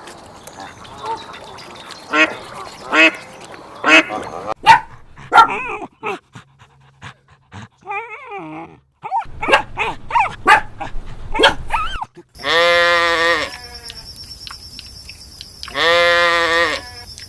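Calls of several different animals in turn: short separate calls in the first half, then two long pitched calls near the end, each rising and then falling in pitch.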